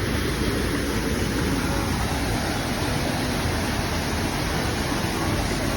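Aira Force waterfall: water falling and rushing in a steady, even roar.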